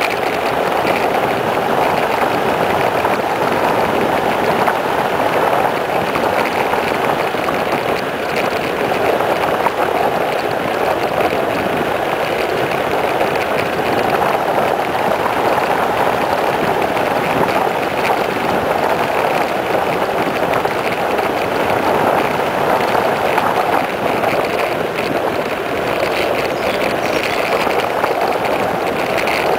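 Steady rushing noise of a mountain bike coasting fast downhill on asphalt: wind over the microphone and tyres rolling on the road.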